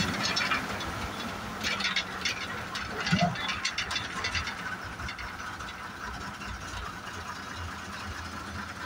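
MSRTC bus heard from inside the cabin while driving: the engine runs with a steady rumble while the body and window frames rattle in clusters of sharp clicks, with a louder knock about three seconds in.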